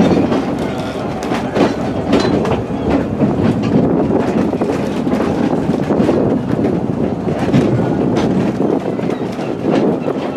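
A two-foot narrow-gauge passenger train rolling along the track, heard from on board an open car: a steady rumble of wheels on rail with irregular sharp clicks as the wheels pass over rail joints.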